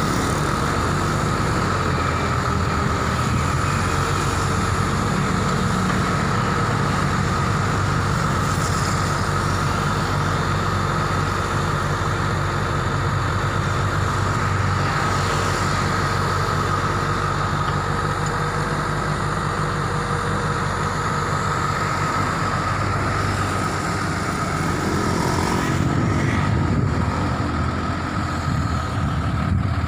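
Diesel engine of a Hino FG 235 Ti crane truck running steadily with a steady high whine over it while the HMF 1800 knuckle-boom crane is folded down hydraulically. The engine's pitch shifts near the end.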